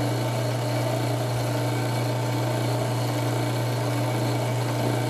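Drill press running at a steady speed, a primer pocket reamer spinning in its chuck, with a constant low motor hum.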